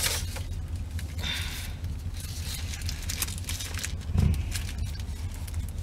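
Faint crinkling of a paper burger wrapper being handled, with a few soft clicks, over a steady low hum.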